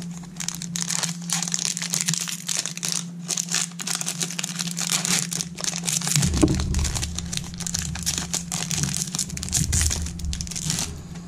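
Foil-lined wrapper of an Upper Deck baseball card pack being torn open and crumpled in the hands: a continuous crackling crinkle for about ten seconds, with a few dull handling bumps midway.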